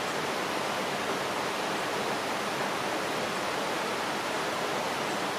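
Steady, even rushing noise that holds the same level throughout, like running water.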